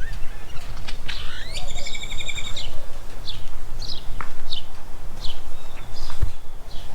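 Songbirds singing: about a second in, a rising call runs into a rapid trill, followed by several short high chirps. A steady low rumble runs beneath them.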